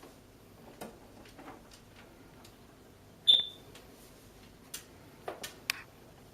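Congo African grey parrot giving one short, sharp high squeak about three seconds in, amid scattered light clicks and taps.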